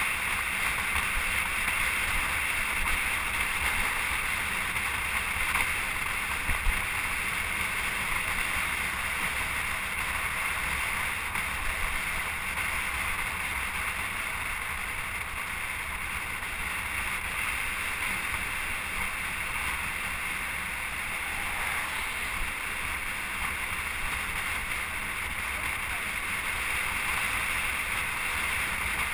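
Steady wind noise on the microphone: a constant rushing hiss over a low rumble.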